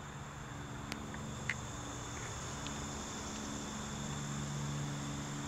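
Insects chirring in the woods, a steady high-pitched drone over a faint low hum, with a few faint ticks.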